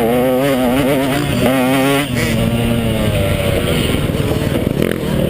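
KTM 150XC two-stroke dirt bike engine revving up and down under quick throttle changes, then dropping to lower revs about two seconds in and running on.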